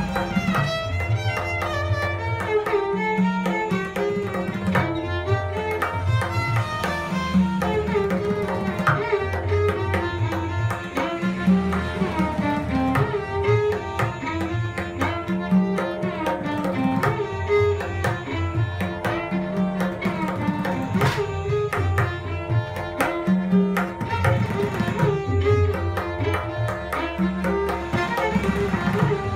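Violin and tabla playing Raag Jaijaiwanti in Hindustani classical style: a gliding bowed violin melody over quick tabla strokes, with booming low bayan notes, over a steady drone.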